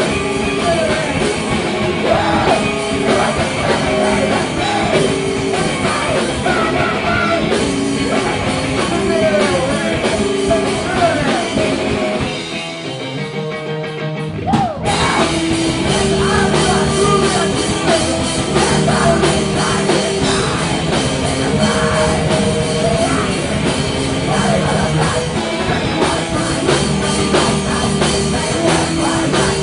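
Loud live rock band with vocals, drums, guitar and bass. About twelve seconds in the drums and bass drop out for about two seconds, then the full band crashes back in.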